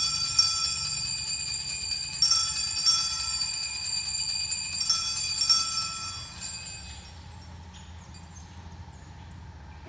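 Altar bells, a cluster of small bells, shaken at the elevation of the host during the consecration of the mass. They ring in three shakes, renewed about two and five seconds in, and die away about six seconds in.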